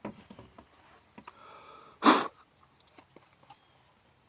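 One short, sharp puff of breath about two seconds in, the loudest thing here, amid a few faint light clicks of small parts being handled.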